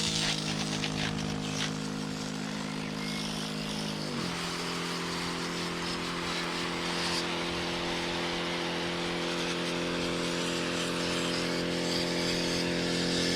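Kärcher OC3 portable pressure washer running, its electric pump humming steadily over the hiss of the water spray. The pump's tone shifts about four seconds in, then holds steady.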